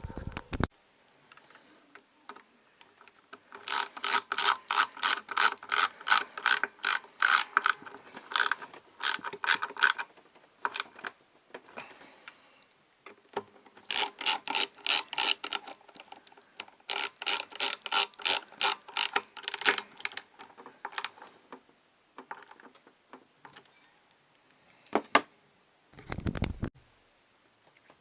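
Rapid mechanical clicking in two runs of several seconds each, a few clicks a second, and a low thump near the end.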